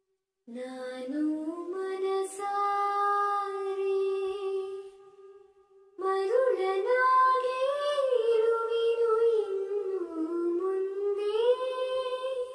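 A high voice singing slow, long-held notes that bend and glide in pitch, in two long phrases with a short break about five seconds in.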